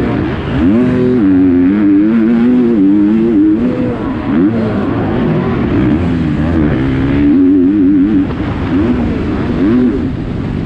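KTM 250 SX-F four-stroke motocross engine, heard from the rider's helmet camera, revving hard and dropping back again and again as the bike is ridden through turns and jumps under race load.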